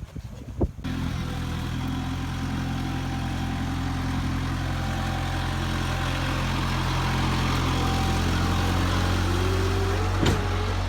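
A large engine idling steadily, coming in abruptly about a second in. A single sharp knock sounds near the end.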